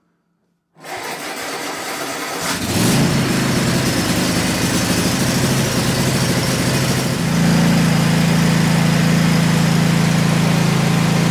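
Cub Cadet GT50's twin-cylinder Kohler 7000 Series engine cranking on the starter for about two seconds, catching, and running, first start after an oil and filter change. About seven seconds in its note settles into a steadier, slightly louder run.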